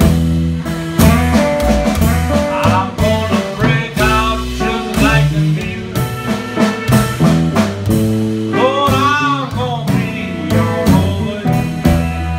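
Live blues band playing: an upright bass plucking low notes under a guitar, with a run of wavering, bent notes about three quarters of the way through.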